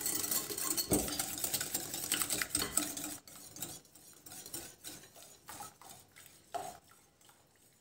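Wire whisk beating egg and sugar in a ceramic bowl: a rapid, steady clinking of the wires against the bowl for about three seconds, then it stops. After that only a few faint knocks and clicks as the jug is picked up and kefir is poured in.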